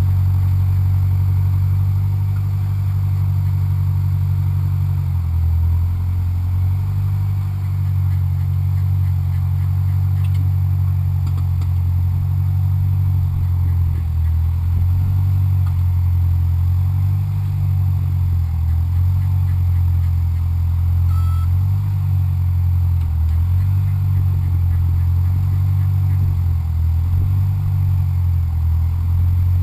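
Homemade backhoe's engine running loud and steady, its pitch wavering up and down from about five seconds in as the load changes.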